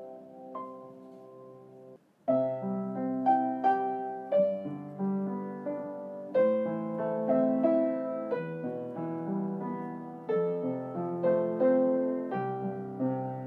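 Background solo piano music, notes struck and fading. It dies away and breaks off for a moment about two seconds in, then picks up again with a new run of notes.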